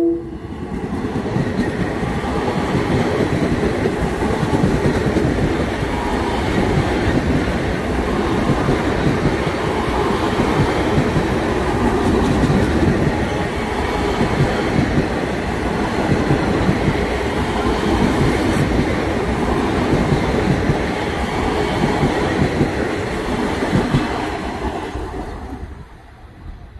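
Long Island Rail Road M7 electric multiple-unit train passing close by: steady wheel-on-rail noise with fine rapid clicking from the wheels over rail joints, fading away about 25 seconds in.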